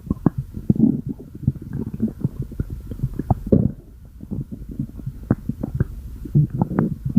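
Human stomach growling: an irregular run of low gurgles and rumbles with many quick pops, easing off briefly about halfway through.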